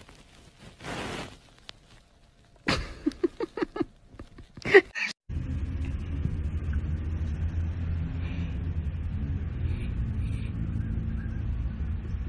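A dog's low, rumbling growl, starting sharply about five seconds in and holding steady after that. Before it comes a quick run of short, higher-pitched sounds.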